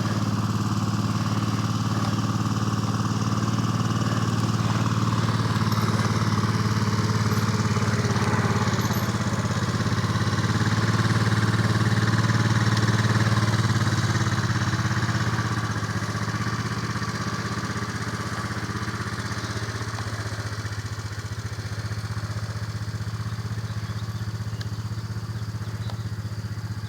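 A vehicle engine running steadily at a constant speed. It grows a little louder midway, then eases down slightly for the rest.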